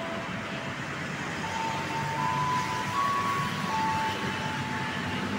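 Steady rumble of vehicle noise, with faint held tones that step between a few pitches.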